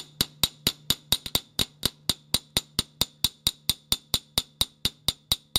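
Small ball-peen hammer tapping steadily on the head of a steel gun screw, about four light, evenly spaced metallic strikes a second: the head is being peened so that the metal flows back to close up a damaged screw slot.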